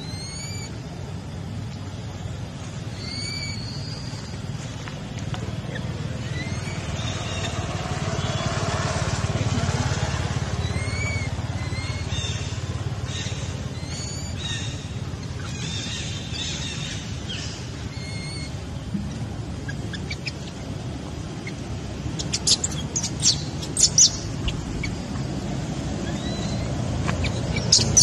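Outdoor ambience: short, high, rising chirps recur every second or two over a steady low rumble, with a few sharp clicks near the end.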